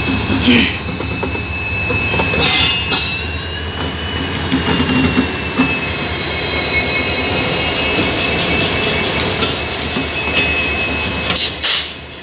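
WDP-4 diesel locomotive (EMD two-stroke engine) passing close by, its engine running with a steady low rumble as the wheels clatter over rail joints. A sustained high wheel squeal runs over it, and a few sharp clanks come about half a second in, around two to three seconds in and near the end.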